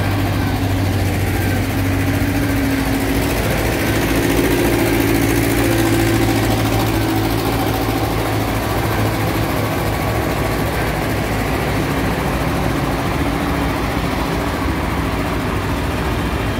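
Diesel engines of a slow convoy of sugarcane loaders running steadily, the engine note swelling a little around four to six seconds in.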